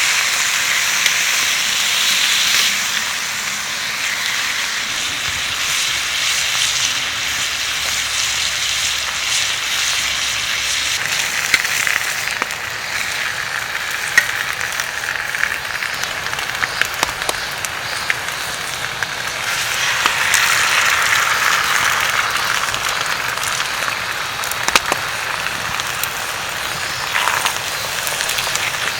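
Food sizzling in a frying pan over a campfire: a steady frying hiss with scattered small pops and crackles, swelling a little at the start and again about two-thirds of the way through.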